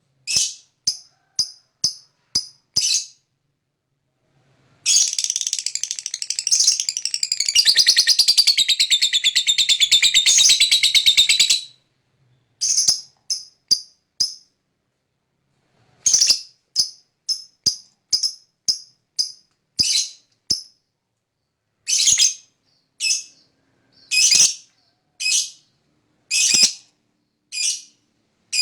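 Lovebird calling: short sharp high chirps, then a long fast chattering trill of about seven seconds (the 'ngekek panjang' that fanciers prize), then more short chirps in quick series.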